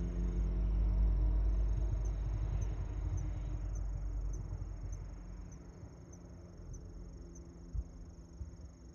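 A passing vehicle's low engine rumble fades away over about five seconds. Under it runs a steady high-pitched whine with a soft tick about twice a second, and there is one short thump near the end.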